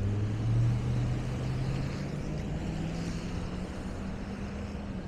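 Vehicle engine running with a low hum that rises slowly in pitch, loudest about half a second in, over a steady noisy rush.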